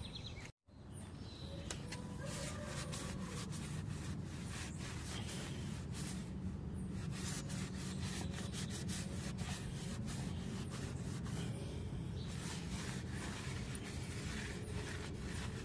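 Cloth rubbing over a steel truck wheel in many short, irregular wiping strokes, over a steady low rumble.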